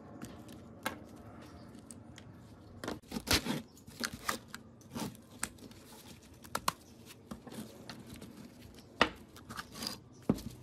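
An old 18 V Hitachi battery pack being handled as its rusty cell pack is lifted out of the plastic case: irregular clicks, scrapes and knocks of plastic and metal, the loudest about three seconds in and again near nine seconds.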